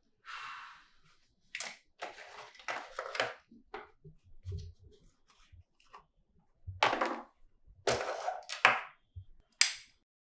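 A string of short foley sound effects with silent gaps between them: about a dozen brief noisy swishes and hits, the loudest near the end.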